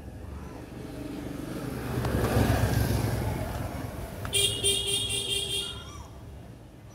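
Road traffic: a vehicle passes, loudest two to three seconds in. A vehicle horn then sounds in rapid pulses, about four a second, for roughly a second and a half.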